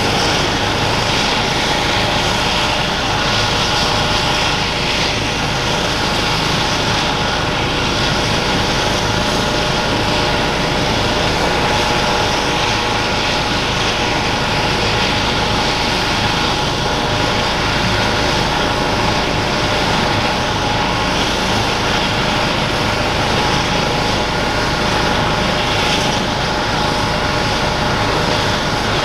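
Airbus EC135 P2+ helicopter with its twin Pratt & Whitney Canada PW206B turboshaft engines and main rotor running steadily on the ground: a constant turbine whine of several steady tones over rotor noise, with a fast low flutter.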